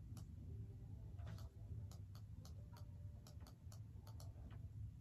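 Faint, irregular light clicking, about a dozen clicks over three seconds, over a low steady hum.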